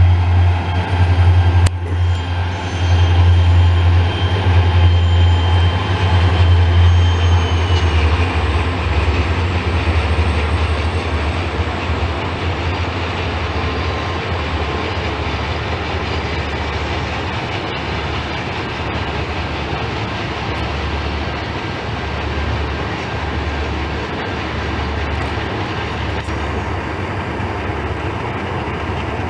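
Diesel-hauled passenger train passing. The locomotive's low engine drone is loudest for the first eight seconds or so, then gives way to a steady rumble of the cars rolling by.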